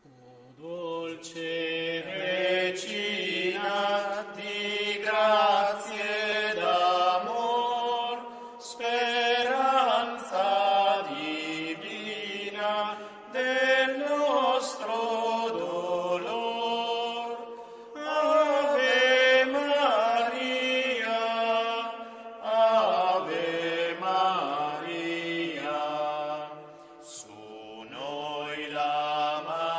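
Voices singing a slow sacred chant, in phrases of a few seconds with short pauses between them.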